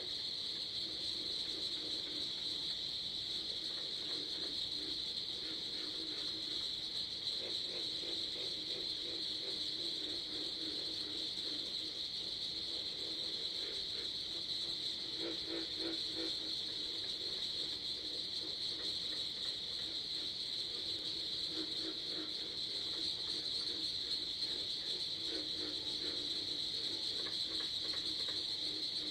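Steady, continuous chorus of crickets, high-pitched and unbroken. Under it a fainter low, rippling sound comes and goes.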